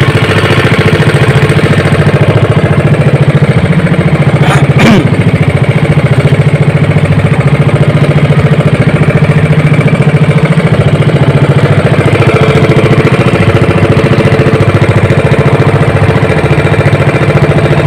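Small engine of a motorised outrigger fishing boat running steadily under way, with a fast, even beat.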